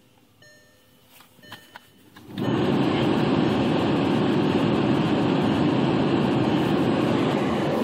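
A 2009 Volkswagen Jetta's heater blower fan is switched up about two seconds in, and air then rushes steadily and loudly from the dash vents. A few faint clicks of the climate-control knobs come before it.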